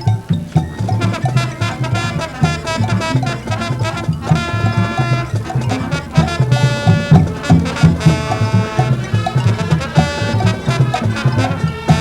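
High school marching band playing a Latin jazz chart: brass holding full chords over a steady, driving drum pattern, with long sustained chords about four and six and a half seconds in.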